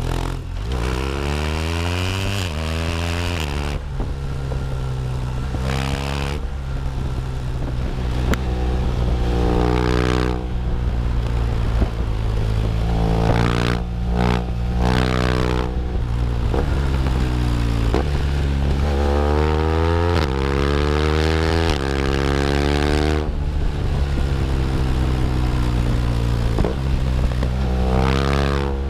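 2015 BMW R1200R's boxer-twin engine running and being revved, its pitch rising and dropping back about six times.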